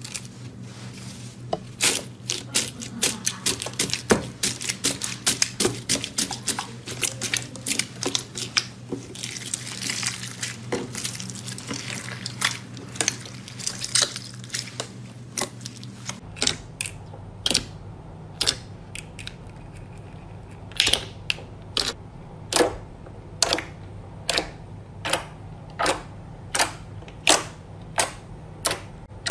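Hands squeezing and pressing slime: dense crunching and crackling of foam beads and bead-filled slime in the first half. About halfway through it changes to separate sharp pops, roughly two a second, as air bubbles are pressed out of clear jelly slime.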